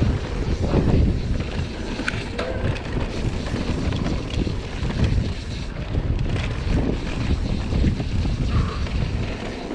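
Wind rushing over the camera microphone and mountain-bike tyres rumbling over a dirt trail during a fast descent, with a few light rattles from the bike.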